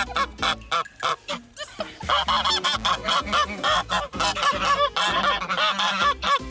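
A pet parrot giving a rapid run of short, harsh honking calls, thinning out for a moment about a second and a half in, over low steady tones.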